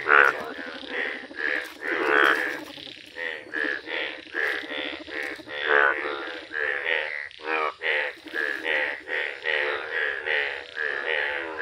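A chorus of male Indian bullfrogs in yellow breeding colour croaking. Short, pulsing croaks follow one another and overlap, about two to three a second. This is the males' breeding call, given while they clasp females in the puddle.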